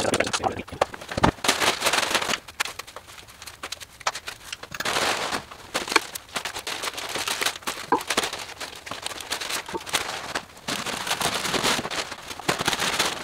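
Plastic packaging crinkling and rustling as boat parts are pulled out of their bags, broken up by sharp clicks and knocks of the parts being handled and set down.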